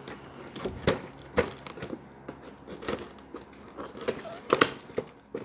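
Cardboard toy box and its plastic packaging being pried and torn open by hand: irregular crinkling with sharp snaps and clicks, the loudest a little under a second in, at about one and a half seconds, and around four and a half seconds.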